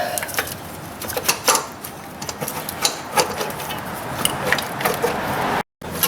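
Starter motor being worked loose from a pickup's engine: irregular metal clicks, clunks and scraping as it is wiggled in its tight mounting space. The sound drops out for a moment near the end.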